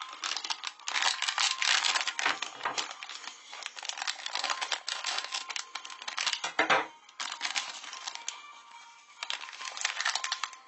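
Paper or foil wrapper crinkling and tearing as it is opened by hand, in dense crackles with a short lull about eight seconds in before a last burst. Background music plays underneath.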